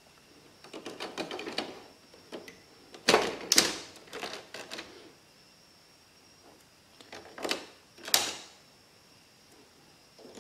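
Hard plastic clicking and clattering as an inkjet print head is set back into the carriage of a Canon PIXUS iX6830 printer and locked in. The clicks come in a few separate clusters, the loudest about three seconds in and another sharp one around eight seconds.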